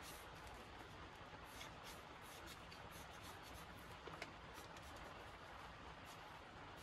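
Faint scratching of a pencil drawing short strokes across textured watercolour paper, with a small tick about four seconds in.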